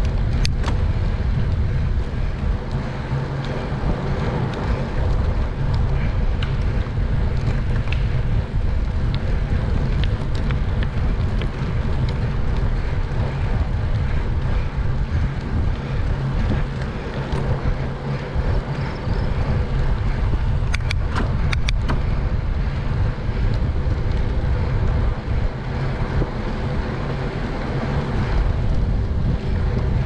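Wind rushing over a bicycle-mounted action camera's microphone, with a steady low rumble from riding over pavement. A short run of sharp clicks comes about two-thirds of the way through.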